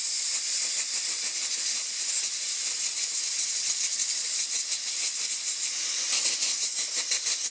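Compressed-air blow gun hissing steadily as air is blown through a two-stroke engine's in-tank fuel filter to clear it, with a rapid flutter in the hiss. The air cuts off suddenly at the end.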